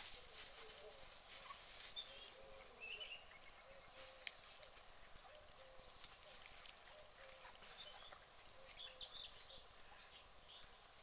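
White domestic ducks faintly murmuring and splashing as they preen and dabble, with scattered sharp little clicks and, now and then, short high bird chirps.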